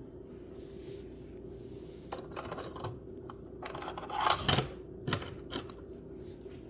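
Irregular light clicks and taps of small hard objects being handled, with a louder cluster of knocks about four seconds in, over a steady low hum.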